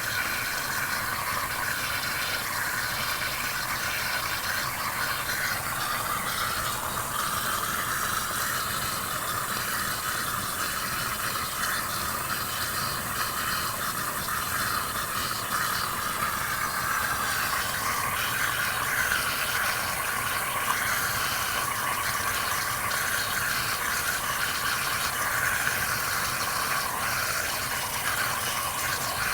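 Whirlpool DU840DWGQ1 dishwasher running, with steady mechanical noise and water bubbling through the openings in the side of the tub. The bubbling and limited flow are the sign of calcium built up in the lines where the water enters.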